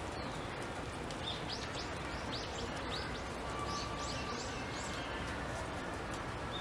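Small birds chirping: a quick run of short, high chirps from about a second in until past the middle, over a steady background hubbub.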